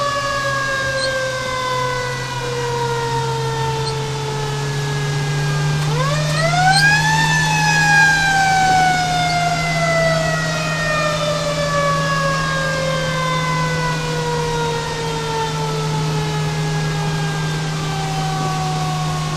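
Fire engine siren with a falling pitch. About six seconds in it quickly winds up again, then coasts slowly down for a long stretch, and starts winding up once more at the end. A steady low drone from the truck runs underneath.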